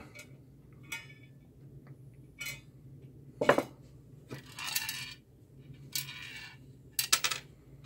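Sheet-metal case and front panel of a soldering and rework station being handled on a desk: scattered metallic clinks and light scrapes, the loudest about three and a half seconds in, with a quick cluster of clicks near the end.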